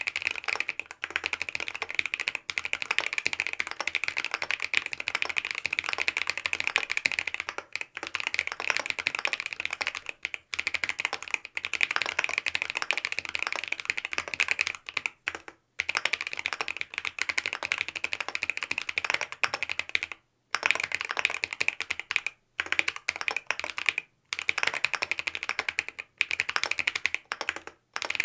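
Fast, continuous typing on a Mont Cervin mechanical keyboard with BSUN OG Holy Panda tactile switches and a polycarbonate plate, keystrokes clacking in quick runs with several brief pauses.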